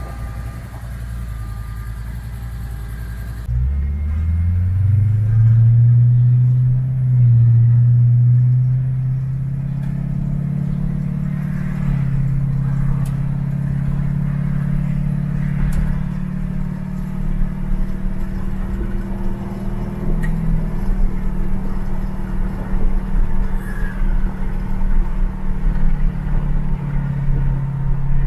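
A 1954 Chevrolet 3100's ZZ4 350 small-block V8, running through stainless dual exhausts, idles steadily. Then the truck pulls away: the engine note climbs in pitch, drops back and steps at the automatic transmission's upshifts, and settles into a steady cruise heard from inside the cab.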